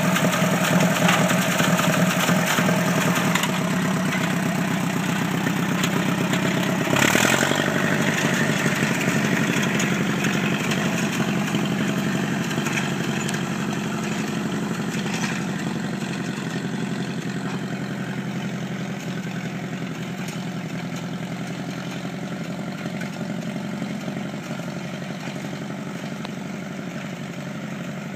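1950 Ferguson TO-20 tractor's four-cylinder gasoline engine running steadily as it pulls a spring-tine cultivator through the sod with the tines lowered. The engine note shifts a few seconds in, and there is a short clatter about seven seconds in. The sound then fades gradually as the tractor draws away.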